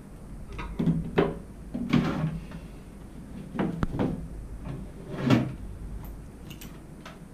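Papers and a clipboard being handled on a wooden desk: a few short knocks and rustles in four bursts, roughly a second or more apart, the loudest a little past five seconds in.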